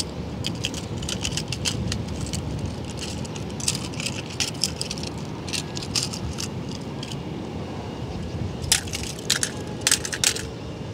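Small toy cars clicking and clattering against each other as a hand picks them up, with louder clacks near the end as they drop into a plastic basket of other toy cars. A steady low rumble runs underneath.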